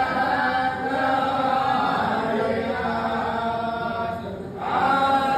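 A group of men chanting a Vaishnava recitation in unison, their voices held over long phrases, with a short break about four seconds in before the next line starts.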